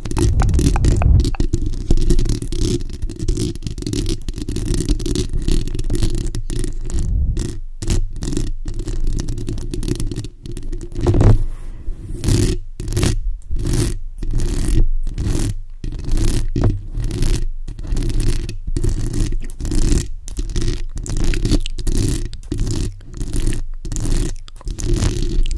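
Long acrylic fingernails and fingertips scratching directly on the bare metal mesh grille of a Blue Yeti USB microphone, heard close-up as a deep, rumbling scrape. The rubbing is nearly continuous at first, then from about a quarter of the way in breaks into quick separate strokes with short pauses between them.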